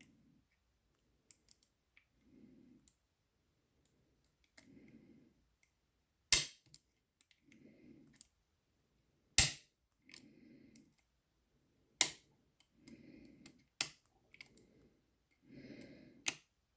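Lever lock being picked one-handed with a homemade pick: sharp metallic clicks and fainter ticks as the tool works the levers, five loud clicks a few seconds apart. Faint low rustles come between them about every second and a half.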